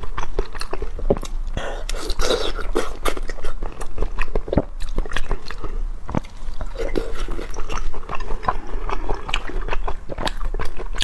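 Close-miked eating sounds: wet chewing and mouth noises with many small sharp clicks, as pieces of food are taken with chopsticks from a bowl of spicy soup and eaten.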